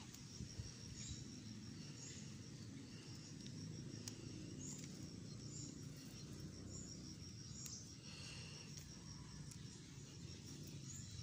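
A steady high insect trill with faint chirps recurring about once a second, over low rustling of leafy chili plants being handled. A couple of sharp snaps come through, one near the middle and one later.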